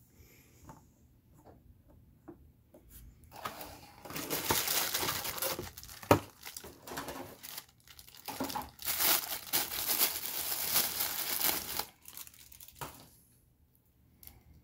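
White tissue paper crinkling and tearing as it is unwrapped from an action figure, in two stretches of a few seconds each, with a single sharp click between them.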